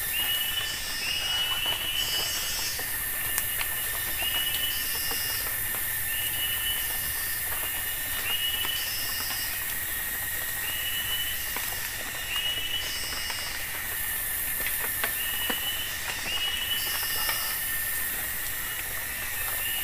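Rainforest insect chorus: a steady high buzz and a constant shrill tone, with a short rising chirp repeated every second or two.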